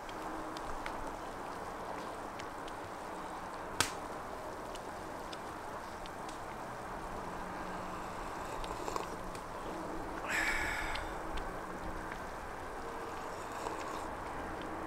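Outdoor ambience: a steady hiss, with a single sharp click about four seconds in and a brief rasping sound about ten seconds in.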